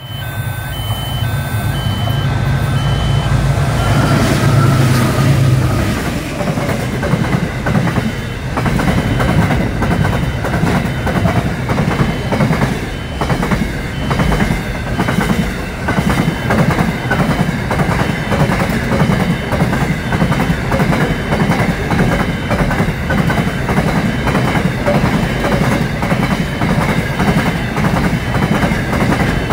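Container freight train passing at close range. The diesel locomotives run by with a heavy low drone in the first five seconds or so, then the wagons roll past with a steady, even clickety-clack of wheels over the rail joints.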